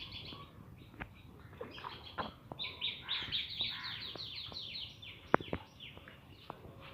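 Birds chirping in quick runs of short, high notes, densest in the middle, with a few sharp clicks in between.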